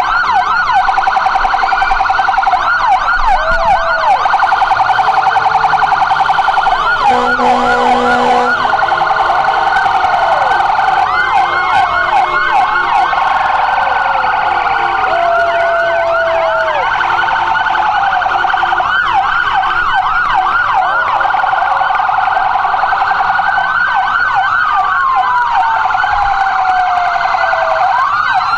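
Several emergency-vehicle sirens wailing and yelping at once, their rising and falling sweeps overlapping. A horn blast of about a second and a half comes about seven seconds in.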